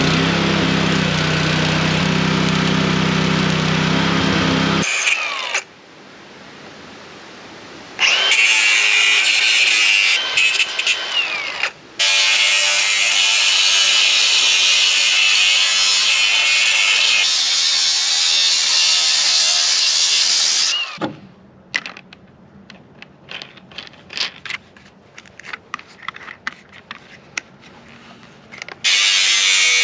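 Cordless angle grinder cutting the sheet steel of a mower grass-catcher basket, in two long loud runs with a short break between, then stopping for several seconds of light clicks and knocks before starting again near the end. The first few seconds hold a different steady hum with low tones.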